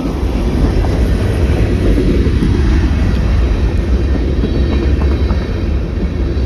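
Freight train of gondola cars rolling through a road crossing: a loud, steady low rumble of steel wheels on rail, with a few scattered clicks as wheels pass over rail joints.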